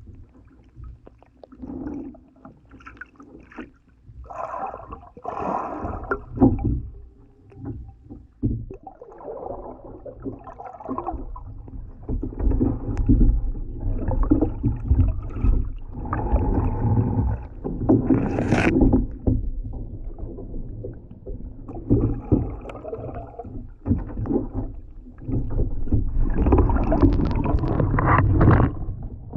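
Kayak being paddled on a lake: irregular paddle strokes splashing and water sloshing, over a low rumble, with one sharper splash about two-thirds of the way through.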